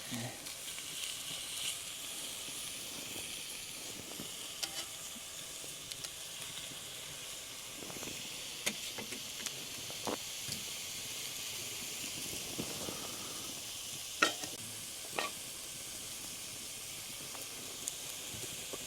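Steady sizzling hiss from a Dutch oven hung over an open wood fire, with scattered crackles and a couple of sharper pops about 14 and 15 seconds in.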